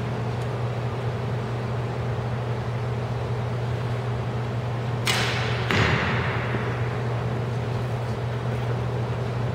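A Japanese yumi longbow shot: a sharp crack of the string at release about five seconds in, followed a little over half a second later by the arrow striking the target with a thud. A steady low hum runs underneath.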